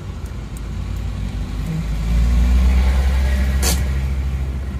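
Isuzu Panther Touring's turbo-diesel engine running as the car creeps along, heard from inside the cabin as a low rumble that swells about two seconds in and then eases off. A single sharp click comes about three and a half seconds in.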